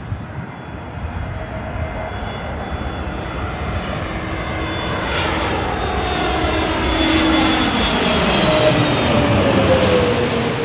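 Airbus A320neo-family jet airliner on final approach with gear down, passing low overhead. Its engine noise grows steadily louder, peaks near the end, and a whine slides down in pitch as it goes by.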